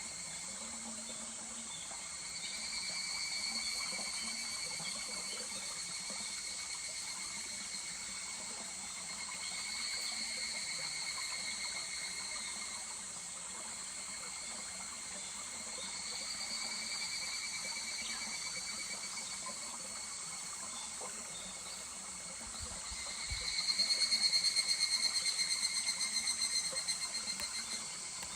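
Higurashi (evening cicadas) calling in about four fast, pulsing trills, one every six or seven seconds, the last and loudest one near the end, over the steady rush of a small stream.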